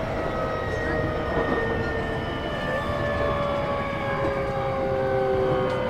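Interior running sound of a JR E233-6000 series electric commuter train: the traction motors and inverter give several whining tones that fall slowly in pitch over a steady rumble of wheels on rail, as the train slows.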